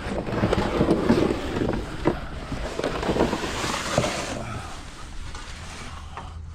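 Close rustling and scraping with scattered knocks, busiest for the first four seconds and then dying down.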